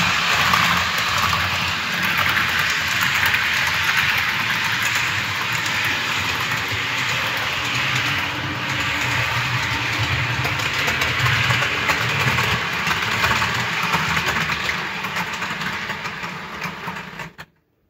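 Model electric trains running on a layout: a steady whirr of the small locomotive motors and wheels rolling over the track, which stops abruptly near the end.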